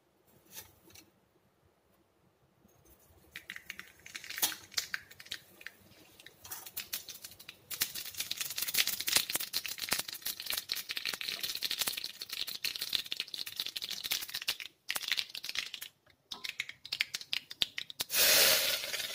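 Tempering seeds spluttering in hot coconut oil in a small tadka pan: a dense, rapid crackling and popping that starts a few seconds in and keeps going. Near the end, a short loud sizzle as the hot tempering is poured into the dish.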